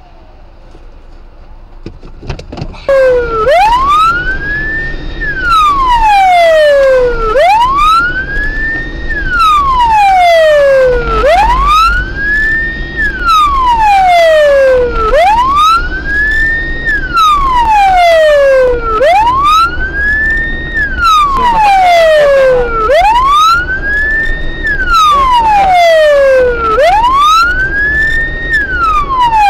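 Police car siren on a slow wail, starting about three seconds in after a couple of sharp knocks: each cycle rises quickly and falls away over about three seconds, repeating every four seconds, loud over the car's low engine rumble.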